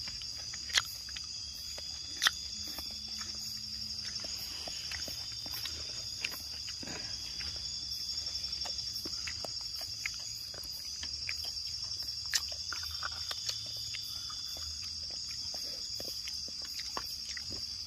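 Night insects trilling in a steady high chorus, with scattered sharp clicks, the loudest about a second in, two seconds in and again about twelve seconds in.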